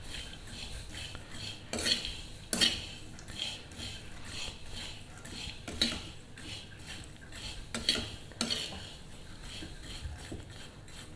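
A metal spoon stirs and scrapes peanuts around a pan, the nuts rattling against the metal as they fry in a little oil. Several stronger scrapes stand out from the steady stirring.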